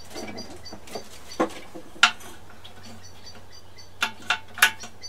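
Hand tools clinking and knocking on the metal of a Briggs & Stratton Classic lawnmower engine as the carburettor is worked loose: single sharp clicks about a second in, then at a second and a half and two seconds, and a quick run of four clinks near the end.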